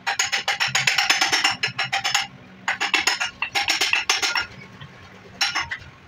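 Hammer striking the metal rear end cover of a 1 hp monoblock water pump motor, knocking it loose from the motor body. The blows are fast, several a second, each with a short metallic ring, in four bursts: a long one of about two seconds, two shorter runs, and a brief one near the end.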